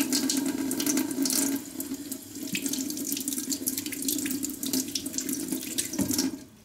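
Kitchen tap running steadily into a sink while produce is rinsed under the stream, with small splashes; the water stops abruptly near the end.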